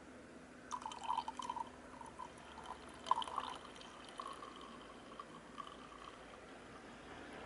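Coffee poured from a glass server into a ceramic cup: splashing and trickling, with a sharper clink about three seconds in, then a steadier, fainter stream.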